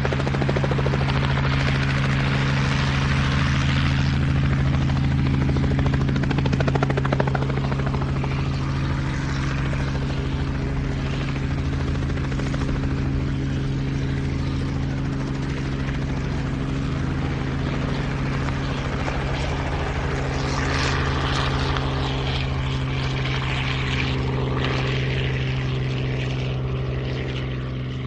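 Helicopter heard from inside the cabin in flight, its rotor and engine running steadily as a constant low drone under a rushing noise. It gets slightly quieter after about seven seconds.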